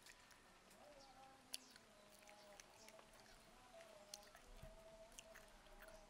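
Faint, sparse crackles of a crisp deep-fried cricket being pulled apart by fingers, a few sharp ticks over a low hiss, the clearest about a second and a half in. A faint wavering tone runs underneath.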